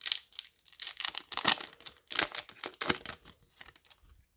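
A foil booster pack of trading cards being torn open, with several crackly tears and crinkles of the wrapper.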